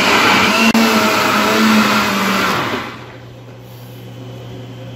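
Philco countertop blender running, blending a thick chili-pepper and mustard sauce, then switched off about three seconds in.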